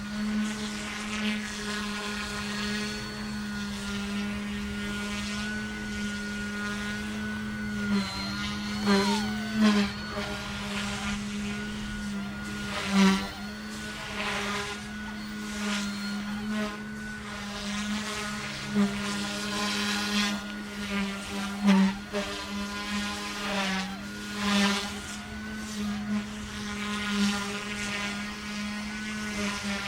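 Omphobby M1 mini electric RC helicopter in flight: a steady rotor and motor whine whose pitch briefly dips and swells several times as it manoeuvres, with louder moments about nine, thirteen and twenty-two seconds in.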